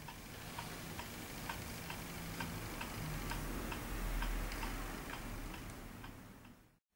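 Steady, regular ticking, a little over two ticks a second, over a low hum.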